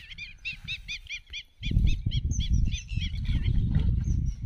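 A bird calling a fast run of short chirping notes, about five a second, that thins out after about three seconds. Under it a loud, uneven low rumble comes and goes, loudest from about one and a half seconds in.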